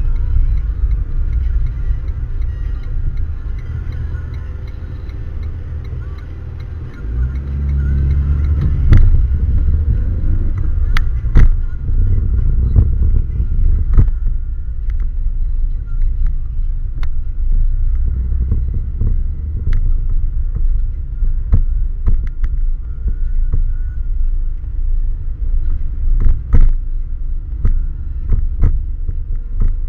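Car engine and road noise heard from inside the cabin while driving, a steady low rumble. About seven seconds in the engine note picks up and rises as the car pulls away. Several sharp knocks and clicks come through later.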